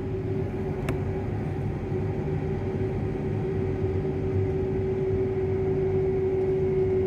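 Tractor engine working in four-wheel drive as the machine creeps slowly forward under load, with a steady high whine over the engine note; the sound grows gradually louder. A single click about a second in.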